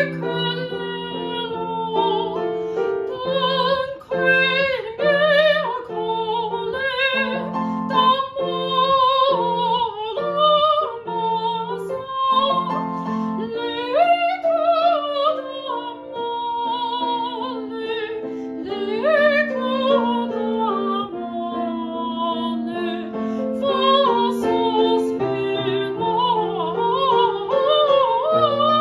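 A woman singing an aria in operatic style, with vibrato on held notes, over piano accompaniment.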